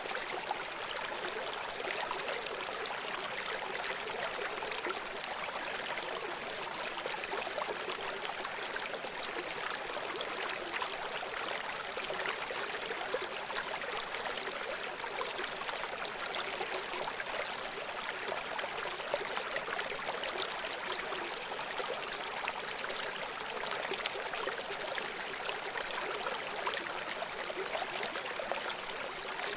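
Running stream: water flowing and trickling steadily over stones, an even rushing babble with no breaks.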